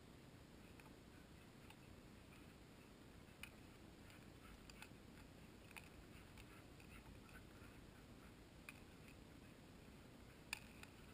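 Near silence with a few faint, sharp clicks scattered irregularly, the loudest near the end.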